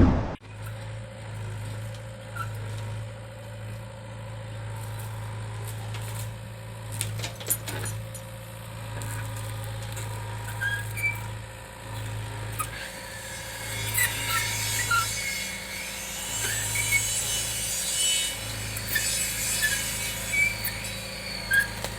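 Diesel engine of a tracked backhoe idling steadily, with scattered short high squeaks and occasional clicks, more of them in the second half.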